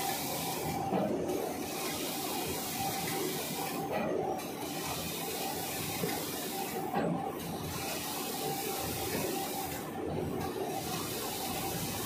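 Automatic band saw cutting machine for jumbo tissue and bobbin paper rolls running: a steady hiss that breaks off briefly about every three seconds, in a repeating cutting cycle.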